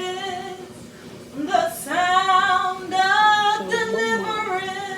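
Unaccompanied spontaneous worship singing by female voices, holding long notes with a second voice sustaining a lower pitch beneath the melody.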